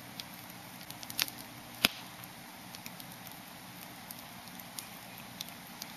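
Wood campfire crackling in a fire pit: scattered sharp pops over a steady low hiss, the loudest pop a little under two seconds in.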